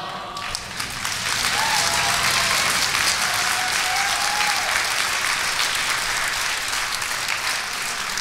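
Audience applauding, a dense steady clapping that breaks out about half a second in.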